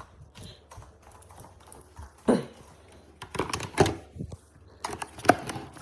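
Plastic parts of a cordless vacuum cleaner handled and clicked into place: a handful of sharp clicks and knocks, spread irregularly, with no motor running.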